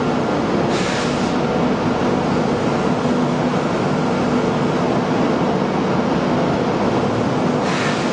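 Okuma CNC machine running while machining a crankshaft: a steady mechanical din with a constant hum, broken by two short hisses, about a second in and near the end.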